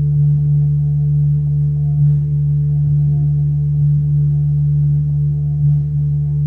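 A loud, steady low droning tone with fainter higher tones held over it, swelling slightly about two seconds in and again near the end.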